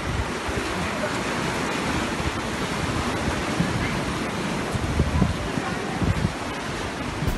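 Rough, storm-driven seawater sloshing among floating wreckage, a steady rush with wind buffeting the microphone in irregular low thumps.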